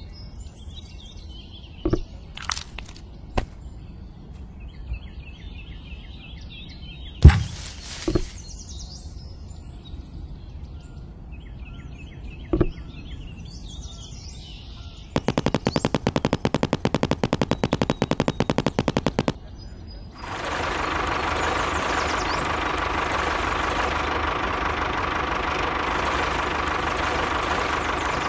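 A few light taps as small model pieces are set down, over faint bird chirps. Past the middle comes a fast, even rattle lasting about four seconds, then from about 20 seconds a steady engine-like running sound from the miniature tractor.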